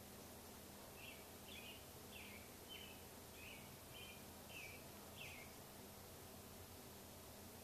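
Near silence with a steady faint room hiss, over which a bird chirps faintly: a run of about eight short notes, each about a second apart or less, starting about a second in and stopping about five seconds in.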